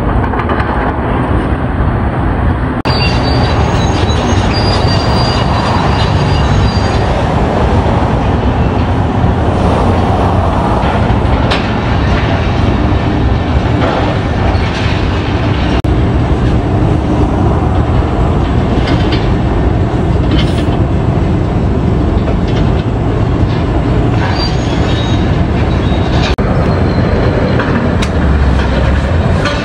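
Heavy demolition excavators working through concrete and steel rubble: a steady loud machine din with high metal squeals a few seconds in and scattered clanks and crunches.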